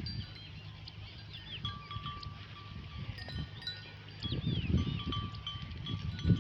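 Sheep's neck bells ringing in scattered, overlapping strikes at a few different pitches as the flock grazes. A low rumbling noise grows louder from about four seconds in.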